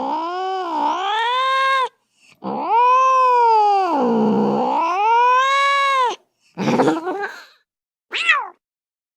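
Domestic cat meowing: four calls, the first two long and drawn out with pitch rising and falling, then a shorter rough one and a brief final meow.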